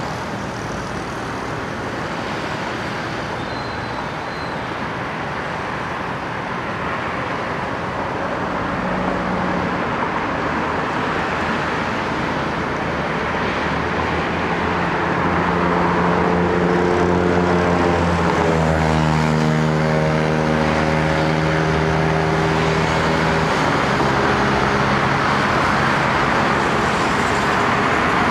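Boeing 747 airliner's jet engines running as it rolls slowly along the runway, a steady rushing noise that grows louder. A low hum comes in about halfway through and fades a few seconds before the end.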